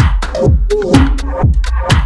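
Electronic dance music with a steady kick-drum beat, about two beats a second, and crisp hi-hat ticks.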